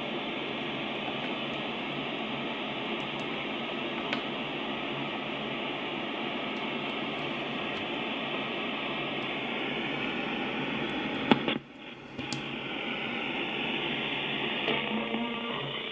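Steady shortwave static and hiss from the Grundig Satellit 800 Millennium's speaker, with no station audible, just after switching to a new antenna while the receiver's sync detector has not yet locked. There is a sharp click and a brief drop-out about eleven and a half seconds in, then the hiss returns.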